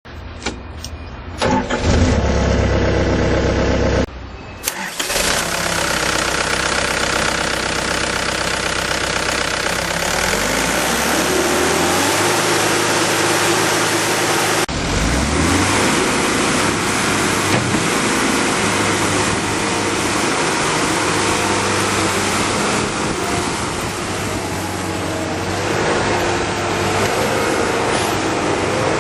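Perkins diesel engine of an ASV 2810 Posi-Track skid steer track loader being cold-cranked by the starter for about two seconds, catching about four and a half seconds in, then running. The revs rise about ten seconds in and change again near fifteen seconds, then it runs steadily.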